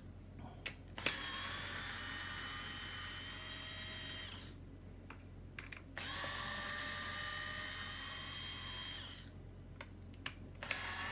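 Small cordless electric screwdriver backing out the hub screws on a stroller's rear wheel, with a steady whine. It runs in two spells of about three seconds each, with a few light clicks in the pauses between them, and starts again near the end.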